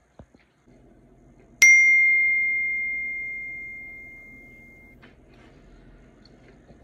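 A single bell-like chime sound effect: one bright ding struck about a second and a half in, its clear high tone ringing and fading away over about three seconds before cutting off.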